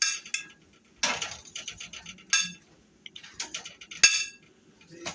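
Metal utensils clinking and scraping against dishes, in quick rattling runs broken by several sharp ringing clinks, the loudest about four seconds in.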